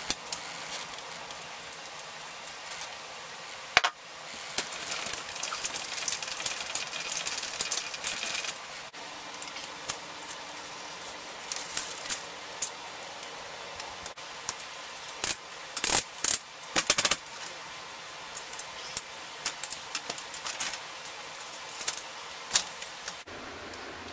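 Bicycle parts handled on a repair stand: scattered clicks, knocks and chain rattles over a steady hiss, with a sharp knock about four seconds in and a quick run of louder clicks a little past the middle.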